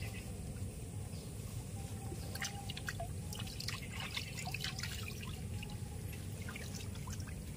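Hands splashing and rinsing in pond water: a run of small splashes, drips and trickles through the middle few seconds, over a low steady rumble.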